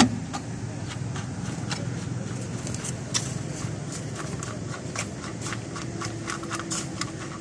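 Irregular light metallic clicks and scrapes of a hand tool as the oil drain plug of a seized Suzuki engine is undone, over a steady low hum.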